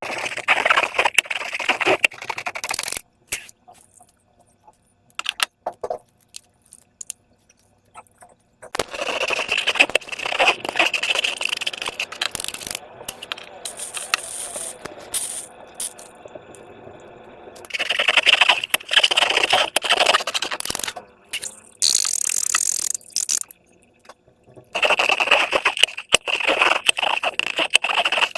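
Slime being squished and worked by hand: wet crackling and clicking that comes in four bursts of a few seconds each, with quieter handling noise between them.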